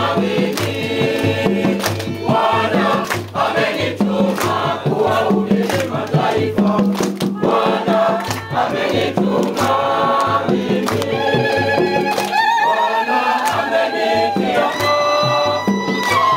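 Congregation singing a hymn together in chorus, with hand clapping and a steady low beat under the voices; the beat drops out briefly about twelve seconds in.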